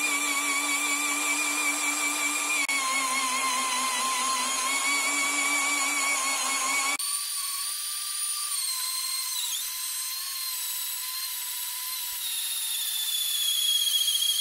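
Brushless cordless drill-driver in first gear boring into a wooden beam with a 20 mm wood auger bit: a steady motor and gearbox whine that sags slightly in pitch as the bit bites. About halfway through the sound turns abruptly higher and thinner, the drilling played back at double speed.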